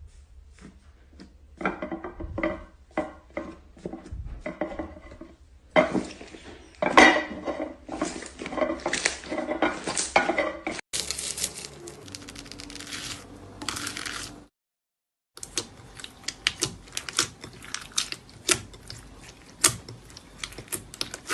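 Slime being squeezed, poked and stretched by hand, making many small wet clicks and crackles, in several short clips joined with brief breaks.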